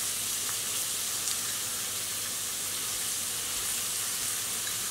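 Sliced red onions frying in hot oil in a pot, sizzling steadily.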